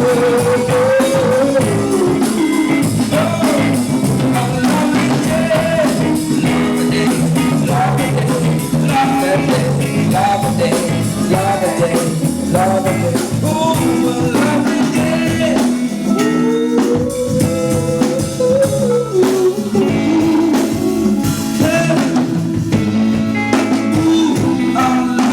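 Live band with guitar, bass and drums playing a soul groove, with a singer holding long wordless notes ("ooh") near the start and again partway through.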